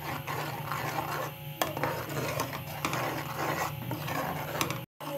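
Metal spoon stirring thick white sauce in a steel pan, scraping along the pan with a few sharp clinks against its sides.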